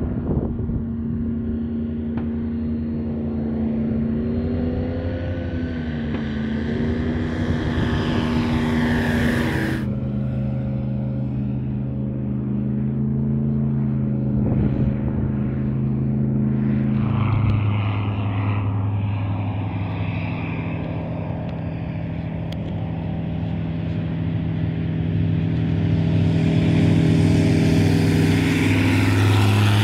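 A Just Aircraft Highlander light aircraft's engine and propeller droning in low flight. The pitch bends about five seconds in, drops in steps near ten and eighteen seconds, and the sound gets louder near the end.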